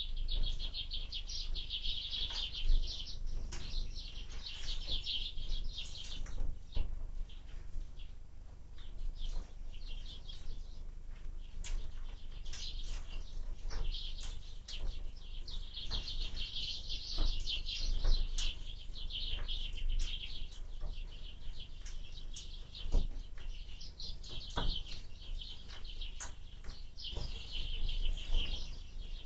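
Small birds at a window feeder chirping in rapid, busy patches that come and go, with scattered sharp taps. A steady low rumble of wind runs underneath.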